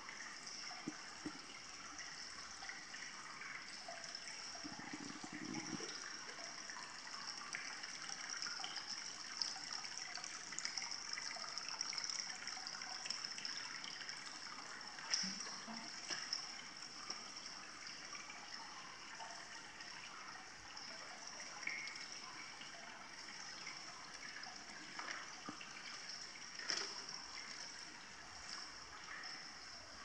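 Hot-spring water trickling and flowing steadily in an indoor bath, with a few brief splashes.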